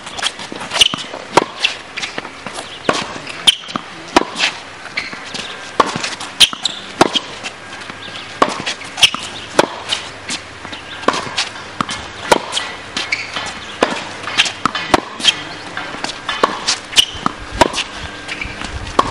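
Tennis rally on a hard court: a ball struck by rackets and bouncing, a string of sharp pops about one or two a second, some loud and some fainter.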